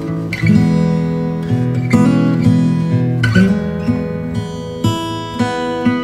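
Background music on acoustic guitar, strummed and plucked chords that change every second or so.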